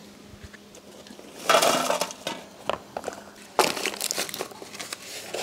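Crushed jackfruit seeds and their dry papery skins scraped and shuffled by hand across a dry palm-leaf sheath. Two rustling, crackling sweeps, one about a second and a half in and another near the end, with small ticks of seeds in between.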